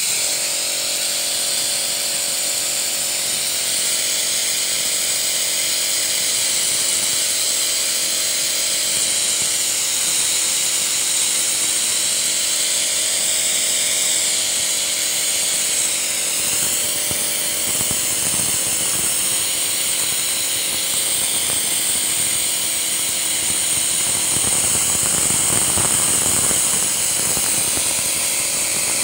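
Vacuum suction rig for engine carbon cleaning running steadily: a continuous machine hum under a loud, even high hiss as carbon-cleaner fluid is drawn through its clear filter canister.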